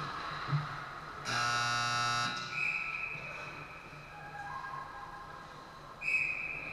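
Ice-rink scoreboard buzzer sounding one steady blast of about a second. A shrill referee's whistle follows shortly after, and a second whistle blast comes near the end.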